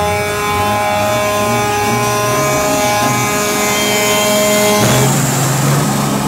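Semi truck's diesel engine revving during a smoke-show burnout, with a steady horn sounding over it that cuts off about five seconds in; after that the engine and the spinning tyres are heard as the truck passes close by.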